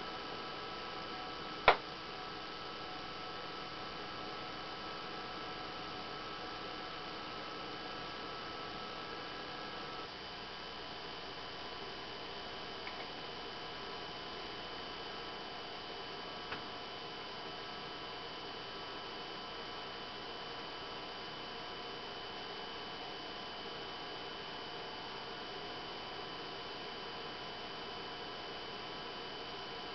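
BenQ W500 LCD projector's cooling fans running steadily, a hiss with several steady whining tones. A sharp click comes about two seconds in, and about ten seconds in the sound drops slightly as some of the tones fade out.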